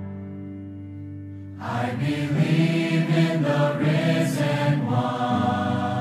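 A large mixed choir singing. It holds a soft chord at first, swells into louder moving phrases from about two seconds in, and settles onto a held chord near the end.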